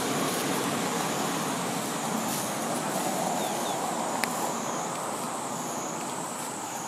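Steady road traffic noise, swelling a few seconds in as a vehicle passes and then easing off, with a thin steady high whine above it.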